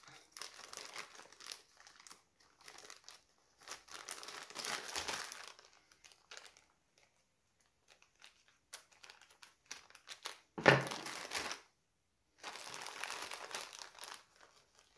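Plastic packaging crinkling and rustling in irregular bursts as a packet of zippers is handled and opened. There is a sharper, louder rustle about eleven seconds in.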